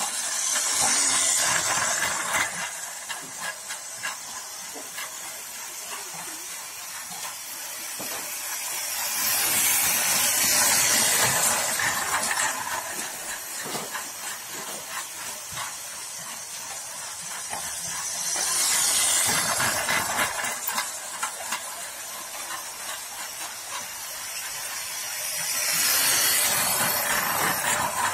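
Battery-powered toy trains running on plastic track over a hard tiled floor: a steady clicking, hissing run of wheels and small motor that swells loud and fades about every eight or nine seconds as a train passes close.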